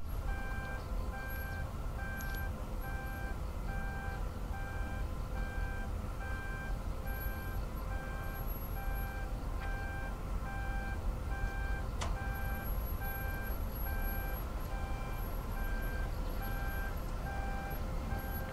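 Warning beeper of an automatic folding solar-powered signboard, beeping evenly about once a second while the board lowers and folds under wind pressure. A steady low rumble and hum run underneath, with a single sharp click about twelve seconds in.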